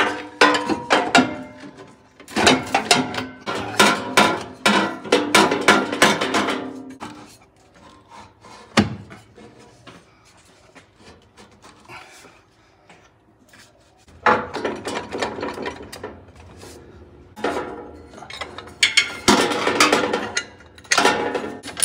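New exhaust downpipe sections clanking, knocking and scraping against each other and their clamps as they are handled into place. It comes in two busy spells with a quieter stretch between them and a single sharp knock in the middle.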